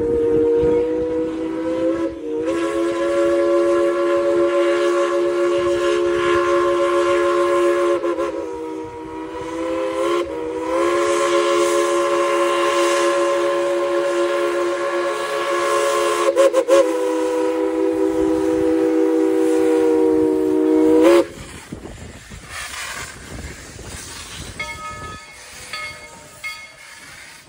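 Steam locomotive's chime whistle blowing a chord of several steady notes in long blasts with short breaks, then cutting off sharply about three-quarters of the way through.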